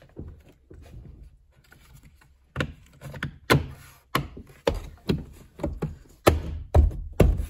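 Hands pressing and knocking the black plastic window trim onto a Honda Odyssey sliding door frame, seating its clips in their holes. From about two and a half seconds in there is a run of about ten sharp knocks, roughly two a second, loudest near the end.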